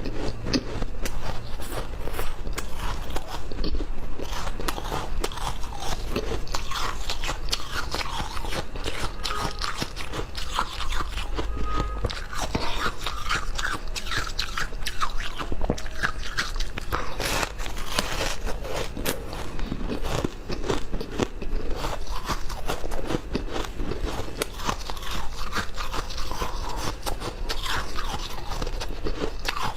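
A person biting and chewing crunchy ice, with dense, irregular crunching and crackling that goes on without a break.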